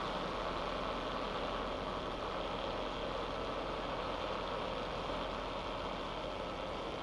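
Ultra Heavy-Lift Amphibious Connector (UHAC) prototype running, a steady, even mechanical noise from its drive and its chain-linked track of flotation pads.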